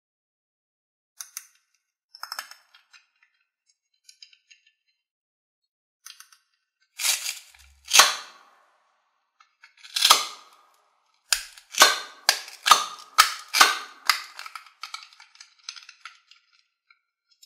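Hard plastic toy tomato halves handled and fitted together: a few faint ticks, then a couple of louder snaps about halfway through as the halves come apart, and a quick run of about a dozen plastic clicks and taps over the last few seconds as they are pressed back together.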